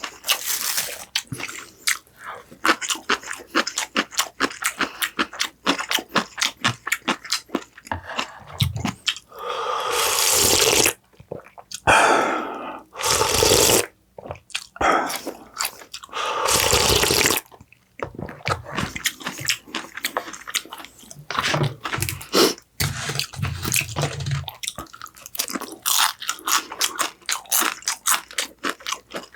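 Close-miked eating: rapid crunchy bites and chewing of food, with three longer rushing, slurp-like sounds of one to two seconds near the middle.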